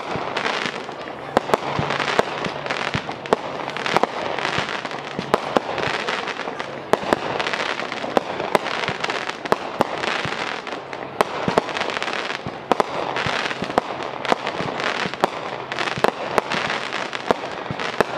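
Fireworks display: a rapid run of sharp bangs from bursting aerial shells, several a second, over continuous crackling.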